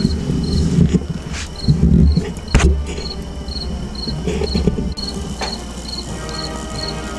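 Crickets chirping steadily, about two chirps a second. Low rumbling thumps and a sharp click are mixed in over the first few seconds, and faint music comes in about five seconds in.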